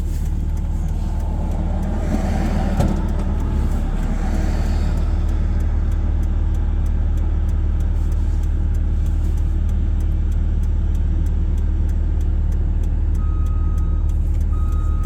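Pickup truck driving through snow, heard from the cab: a steady low engine and road rumble with a regular ticking. Near the end, a wheel loader's backup alarm beeps on and off.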